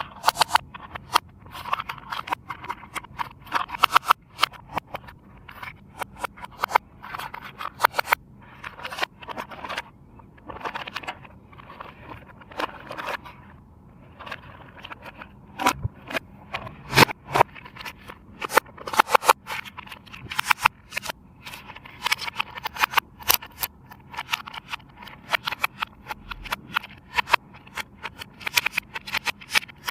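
Plastic packaging and toy parts being handled and unpacked: a dense, irregular run of clicks, crinkles and short scratchy scrapes.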